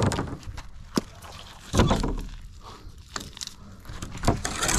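Handling noises from a rusty sheet-metal sign pulled up by a fishing magnet: a few short scrapes and sharp knocks as it is shifted on the concrete ledge and rubbed with a gloved hand.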